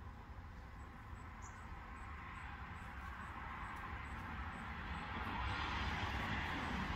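A passing road vehicle approaching, its engine and tyre noise swelling steadily louder over several seconds.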